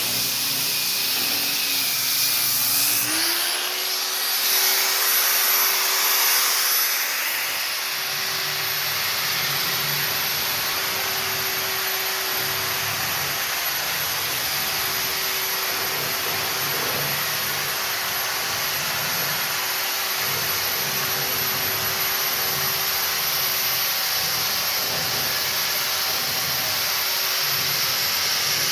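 High-speed electric power tool running steadily, a continuous whine and rush of noise; its pitch rises and settles about three seconds in.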